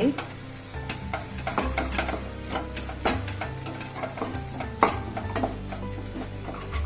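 Wooden spatula stirring and scraping a thick vermicelli, milk and milk-powder mixture around a non-stick kadhai on the heat, in irregular strokes with the mixture sizzling. It is being stirred continuously to keep milk-powder lumps from forming.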